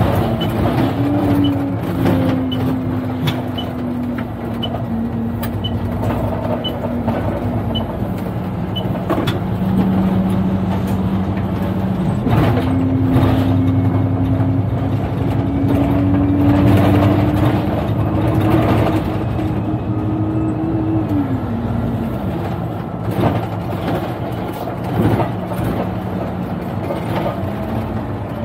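Alexander Dennis double-decker bus running on the road, its engine tone climbing and falling with speed and dropping sharply a couple of times, over knocks and rattles. A faint high tick repeats about three times every two seconds through the first nine seconds or so.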